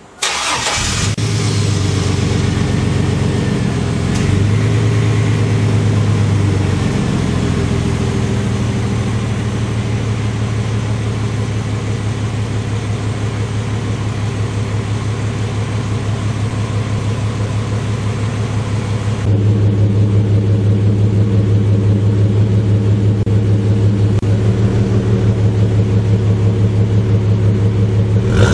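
1999 GMC Sierra 1500's 4.3L Vortec V6 starting up through a Gibson cat-back exhaust with 3-inch pipe and an unpacked muffler, catching within about a second and then idling steadily. About 19 seconds in, the idle turns deeper and louder and the hiss above it drops away.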